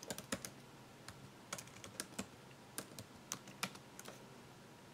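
Faint, irregular typing on a computer keyboard: about ten scattered keystroke clicks.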